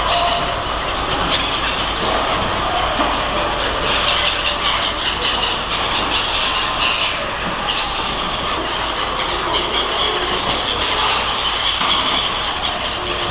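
Busy fish-market working noise: continuous dense clattering and mechanical rumble of handling and machinery, with no single event standing out.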